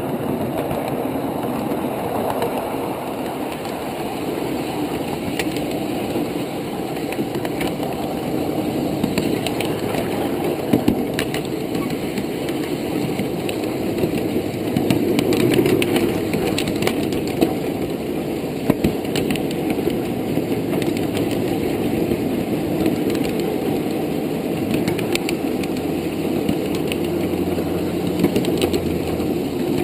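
Ride-on miniature railroad train running along its track: a steady engine-and-wheel rumble with occasional sharp clicks and knocks from the running gear on the rails.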